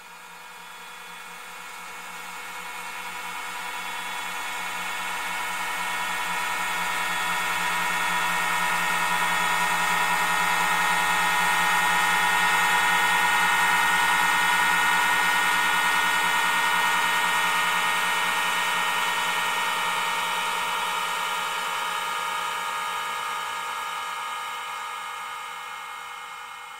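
A steady, buzzing drone with many overtones that swells in slowly, peaks about halfway through and fades out again.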